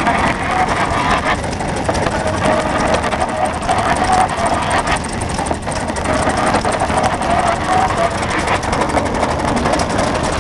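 Davis type N stationary engine, a re-badged Ronaldson Tippett, running steadily under load as it belt-drives a grister grain mill, with a fast, even clatter from the mill machinery.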